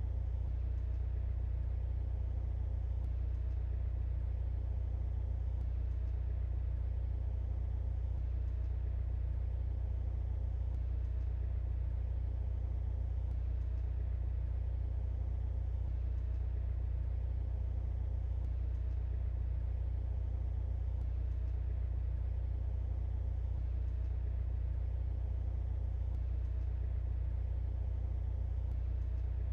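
2023 Mercedes-AMG C43's turbocharged four-cylinder engine and tyre noise heard from inside the cabin at a steady cruise: an even low drone that neither rises nor falls.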